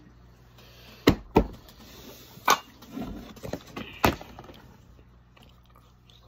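Sharp knocks: two in quick succession about a second in, one about two and a half seconds in, and a fourth about four seconds in, with softer shuffling sounds between the last two.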